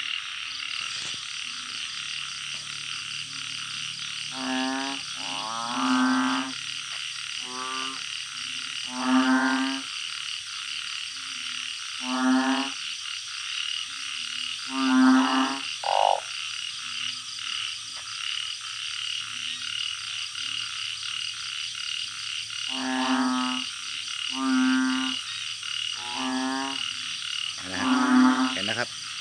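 Male truncate-snouted burrowing frogs (balloon frogs, Glyphoglossus molossus) calling: about ten deep, croaking calls, each under a second, a second or a few seconds apart. They come in two bouts with a lull in between, over a steady high insect chorus.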